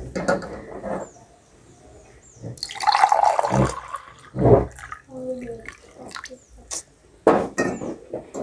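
Water splashing in a few short bursts, with faint voices in between.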